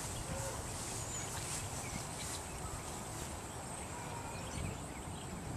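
Steady outdoor background noise: a low rumble with a faint, even high hiss, and no distinct events.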